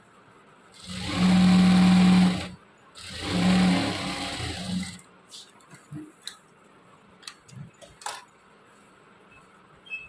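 Electric sewing machine running in two short bursts of about a second and a half each, stitching a seam, its motor giving a steady hum. A few light clicks follow.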